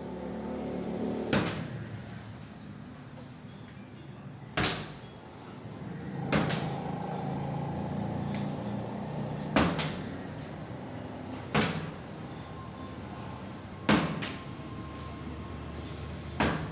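Plastic water bottle tossed again and again and landing on a counter with about seven sharp knocks, a few seconds apart, one landing bouncing twice. A steady background hum runs underneath.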